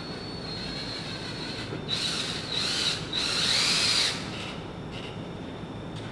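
Large paper backdrop being pulled and peeled away from the wall at its top edge: two noisy tearing pulls, each about a second long, with a squeal that bends in pitch.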